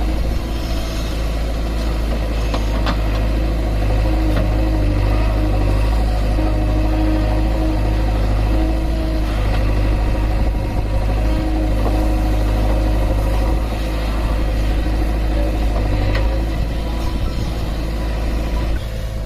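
JCB 3DX backhoe loader's diesel engine running steadily as the machine works its backhoe arm, with a tone that comes and goes in steps and a few faint knocks.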